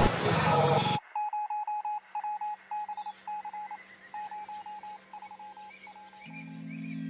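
Background music in an electronic song intro: a burst of noise cuts off about a second in, then runs of quick, high, phone-like beeps, over a low held tone that swells near the end.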